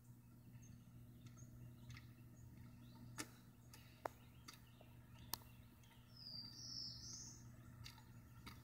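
Near silence: a faint steady low hum with a few soft clicks, and one short bird chirp about six seconds in.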